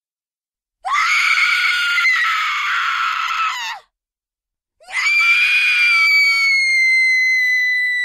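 Two long, high-pitched horror screams, each about three seconds, with a second of silence between them. The second is held at one pitch, slides slightly down and breaks off at the very end.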